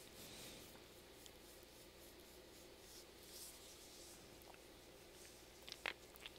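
Near silence: room tone with faint rustling and a few small clicks near the end.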